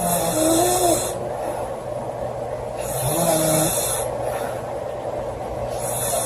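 A girl snoring loudly, one snore about every three seconds: two full snores, and a third beginning near the end. Each snore is a breathy rasp with a short wavering tone in it.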